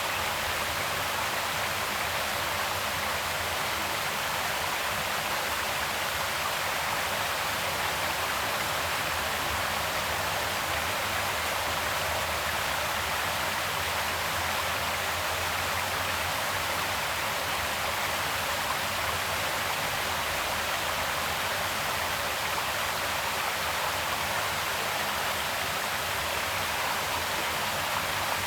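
Creek water flowing, a steady even rush with no change in level.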